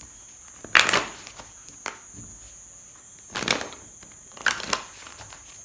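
A deck of tarot cards being shuffled by hand, heard as three short papery rustling bursts about a second in, at three and a half seconds, and around four and a half seconds, with a few light card clicks between.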